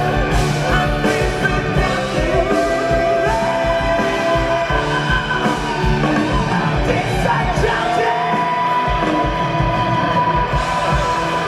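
A band playing a song from a medley, with singing: long held notes over a steady drum beat.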